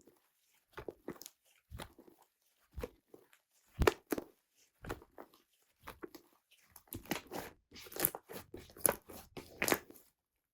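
Slime being squeezed and pressed by hand, giving irregular sharp pops and clicks that come faster and closer together over the last few seconds.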